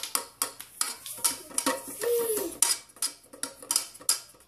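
A kitchen utensil knocking and scraping in a small saucepan, an irregular run of clattering strikes, several a second.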